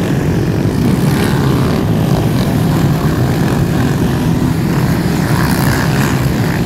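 A large pack of racing quad bike engines running together in a loud, steady, dense drone.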